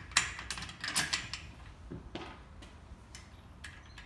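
A bolt and nut being fitted by hand to a wheelbarrow's wheel axle holder: a run of small metal clicks and knocks, busiest in the first second and a half, then a few scattered ones.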